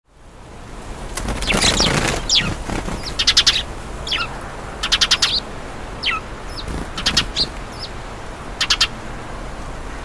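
House sparrows chirping: single short downward-slurred chirps mixed with quick rattling runs of several notes, about a second and a half apart at first, then spaced out. A brief louder rustling burst comes about a second and a half in.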